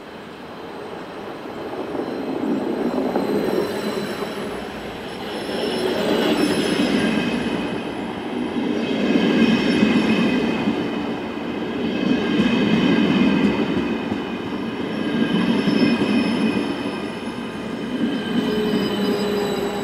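WESTbahn Stadler KISS double-deck electric multiple unit rolling past close by: a rumble that builds and then swells and eases every few seconds as the cars go by, with high, steady squealing tones from the wheels over it.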